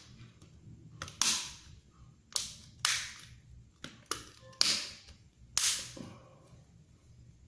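Six sharp plastic snaps, each trailing off briefly, about a second apart: a Samsung Galaxy J6+ being put back together after its power switch was replaced.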